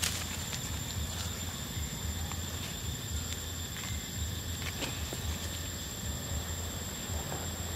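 Roadside outdoor background: a low, fluctuating rumble under a steady high-pitched tone, with a few faint scattered ticks and rustles.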